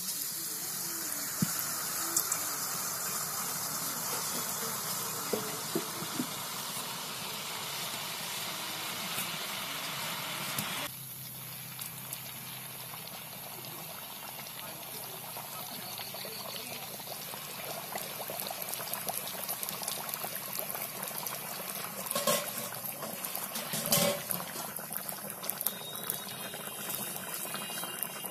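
Batter sizzling and bubbling as it deep-fries in hot oil in an iron karahi, a steady hiss that drops a little in level about eleven seconds in. A few sharp knocks come near the end.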